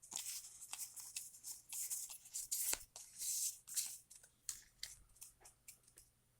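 Foil booster-pack wrapper crinkling and crackling as the pack is opened, a busy run of short crackles and clicks that thins out toward the end.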